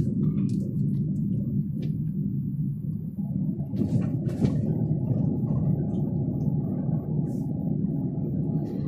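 Car running at low speed, heard inside the cabin: a steady low rumble of engine and road noise, with a couple of faint clicks about four seconds in.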